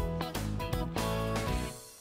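Background instrumental music, fading out near the end.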